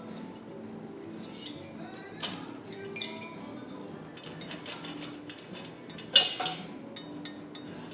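Metal clinks and knocks as an air-cooled VW engine's aluminium cylinder head is rocked loose and worked off its studs, with one sharper clink about six seconds in.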